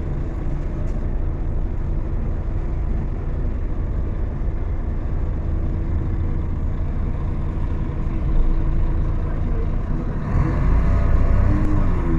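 Mercedes-Benz O500-UA articulated city bus's diesel engine running under way, heard from on board. The rumble is steady at first, then grows louder, with its pitch shifting, about ten seconds in.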